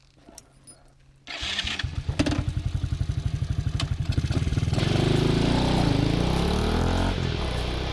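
Honda Grom's single-cylinder four-stroke engine starting about a second in and running with a fast, even beat, then revved up and down before settling to a steady run.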